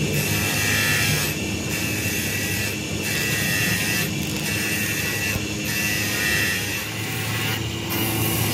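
A tool working metal in repeated strokes, each about a second long with short breaks between, over a low steady hum.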